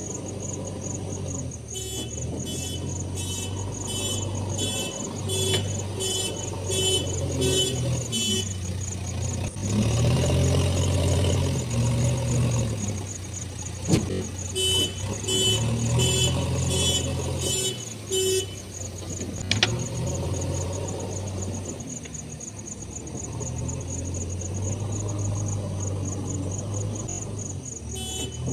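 Diesel engine of a JCB 3DX backhoe loader running steadily, revving up twice during the loading work. Over it, a high electronic beeping repeats about twice a second in two spells.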